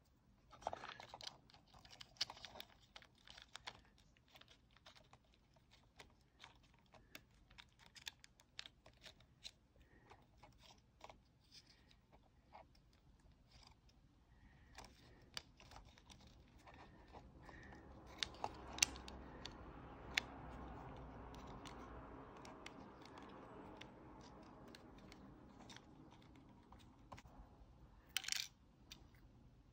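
Faint clicks and taps from small plastic parts being handled: the plastic gearbox housing, gear wheels and wires of a small solar toy windmill's motor unit. A soft rustle swells in the middle, and a short, sharper clatter comes near the end.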